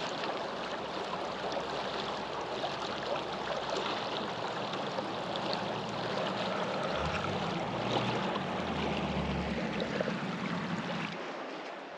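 The glacier-fed Savage River rushing steadily, with a low rumble about seven to ten seconds in. The rush drops away a little shortly before the end.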